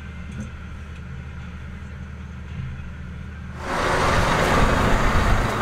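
Tractor engine running with a steady low hum, heard from inside the cab. About three and a half seconds in, this gives way suddenly to a much louder rushing noise.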